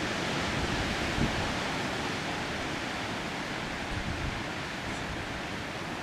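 Steady rushing of wind through trees and brush, an even hiss with no distinct gusts that eases slightly.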